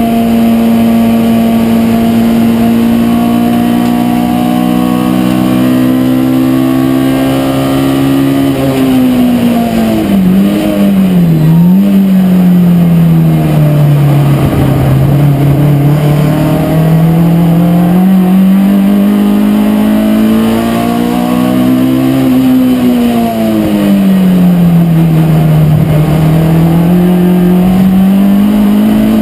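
Race car engine heard from inside the cabin, held at high revs for the first eight seconds. It then drops in pitch, with a couple of brief dips around ten seconds in, and climbs back slowly. The pitch falls again a little after twenty seconds and rises once more near the end.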